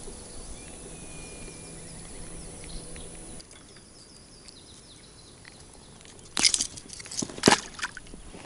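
Handling noise while a perch is worked off a hard fishing lure in a boat: a faint steady hum that cuts off about a third of the way in, then a quick cluster of sharp clicks and knocks about two-thirds of the way in, the loudest part.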